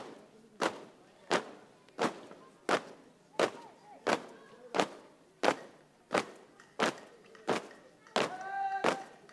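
A marching squad's feet stamping on paving in unison, sharp hits in a steady beat about three every two seconds, as in the langkah tegap parade step. Near the end, voices are heard between the stamps.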